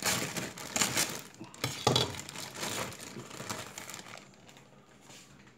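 Plastic bag crinkling as it is handled and opened, with many small crackles, loudest in the first two seconds and dying away after about four.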